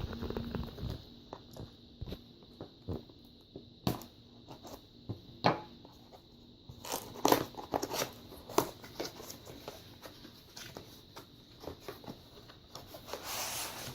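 A box and its plastic packaging being opened and handled: scattered sharp clicks and taps with crinkling and rustling, busiest near the end.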